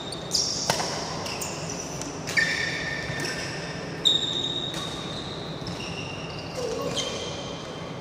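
Badminton rally: rackets strike the shuttlecock in sharp cracks, about eight or nine times, loudest about two and a half and four seconds in. Court shoes squeak in short high notes on the court mat between shots.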